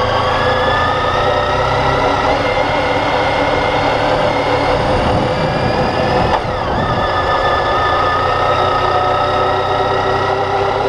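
Motorcycle engine running under way, its note rising slowly, then dropping suddenly about six seconds in with a brief dip in loudness, like a gear change, before steadying and climbing again.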